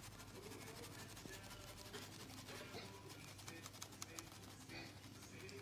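Faint scratchy ticking of a stainless-steel mesh sieve being shaken as flour sifts through it into a bowl of batter, over a low steady hum.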